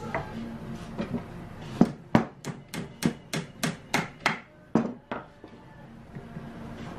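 A rubber mallet striking a wooden rail about a dozen times in quick succession, roughly three blows a second, driving it onto dowels to seat a dowel joint. A few lighter wooden knocks come before the run of blows.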